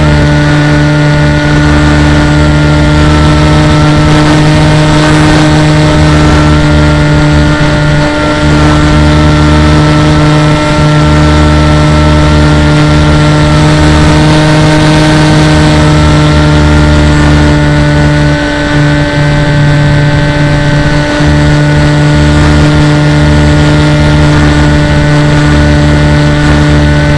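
Motor and propeller whine of an FPV radio-controlled aircraft in flight, picked up by its onboard camera: a loud steady drone with a higher tone that drifts slowly up and down in pitch.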